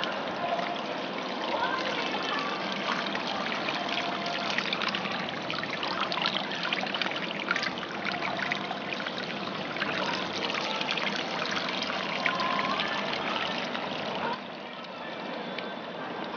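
Water trickling from a bamboo spout into a stone hand-washing basin (chōzubachi), splashing over a hand held under the stream; the sound drops away about fourteen seconds in.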